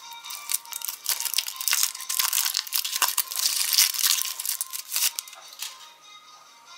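Thin foil wrapper crinkling and tearing as it is peeled off a car-shaped chocolate, a quick run of sharp crackles that dies away about five seconds in.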